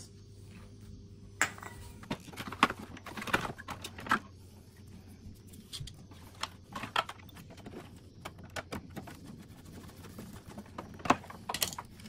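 Irregular clicks, taps and light rattles of hands handling the plastic wire connectors and casing of a split air-conditioner indoor unit, with the sharpest knocks about a second and a half in and shortly before the end.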